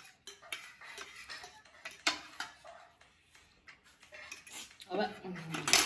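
Eating utensils clinking and scraping against bowls and dishes in a run of short, irregular clicks while people eat. Near the end a brief falling voice-like sound comes in, followed by a sharp clink.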